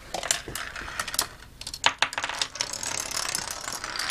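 Dominoes toppling one after another in a chain, a rapid run of light clicks and clatter, opened by an object rolling down a metal track into them.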